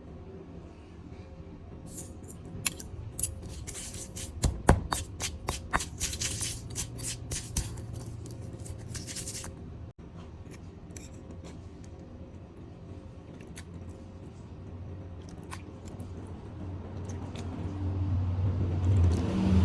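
A fast run of sharp clicks and snips from kitchen utensils in food preparation, then sparser clicks after a sudden break about halfway, with a low hum building near the end.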